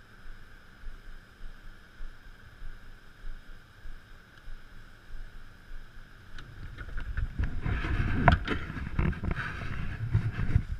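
Aluminium fishing boat on a river: a faint steady hum at first, then about seven seconds in a louder low rumble with scattered sharp knocks from the boat.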